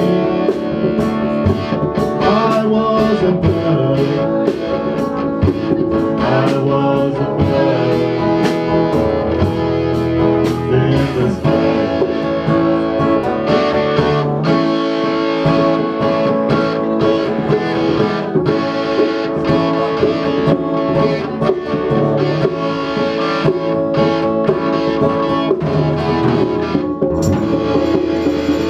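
Band music led by guitar over a drum beat, a stretch of a song with no clear lyrics heard.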